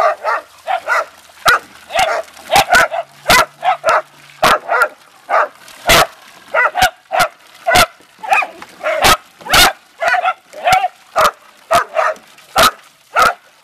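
Small dachshund-type dogs barking over and over in short, sharp barks, about two a second, mixed with higher yips, as they bark at a hose's stream of water.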